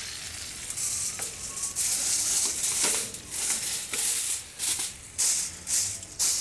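Tin foil crinkling and rustling in short, irregular bursts as a foil-covered roasting tray is handled and pushed into a barrel charcoal grill.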